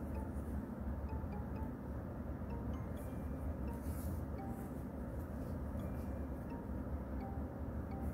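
Steady low rumble of background hum. A couple of soft rustles come as yarn is drawn through crocheted fabric with a tapestry needle while sewing a stem on. Faint, scattered soft music notes sit underneath.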